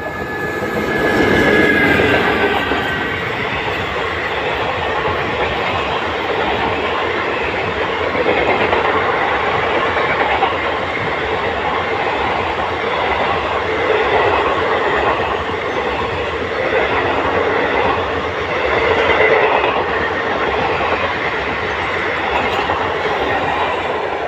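Indian Railways superfast express hauled by a WAP-4 electric locomotive passing at speed close by. The sound swells to a peak about two seconds in as the locomotive goes past, then runs as a steady rushing noise of the passenger coaches going by.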